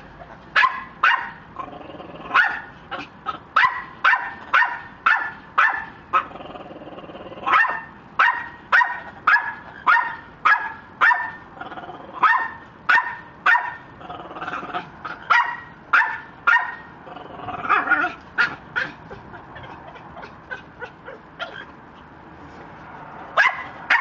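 Red-lored Amazon parrot mimicking a dog's bark: runs of short, sharp barks about two a second, with a pause about six seconds in and a longer lull before one last bark near the end.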